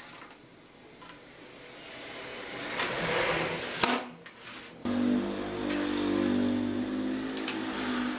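Wooden boards slide across a workbench with a sharp knock a little before four seconds in. About five seconds in, a steady low engine-like hum starts and keeps going.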